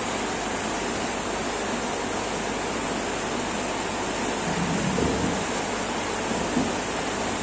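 Steady rain falling, a constant even hiss of drops.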